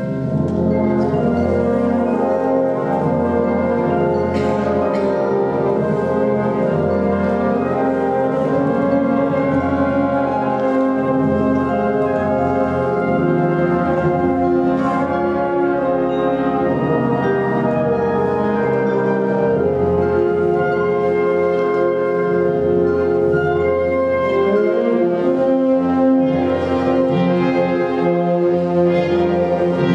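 Concert band of brass, woodwinds and percussion playing sustained full chords, with a couple of sharp percussion strikes about four and fifteen seconds in.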